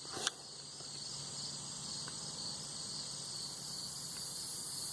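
Steady high-pitched insect trilling in the background, with a faint low hum and a single brief click about a quarter second in.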